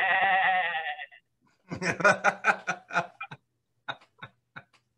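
A drawn-out, wavering bleat-like cry for about the first second, then a man laughing hard in quick pulses that trail off into short breathy chuckles.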